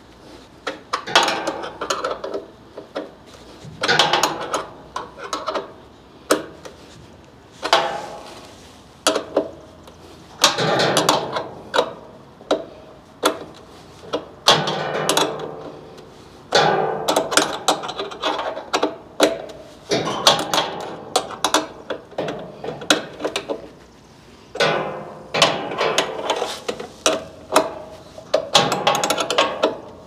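Ratcheting wrench clicking in repeated bursts of rapid clicks, a second or two each, as the packing bolts that hold an outdoor air-conditioner condenser to its shipping pallet are backed out.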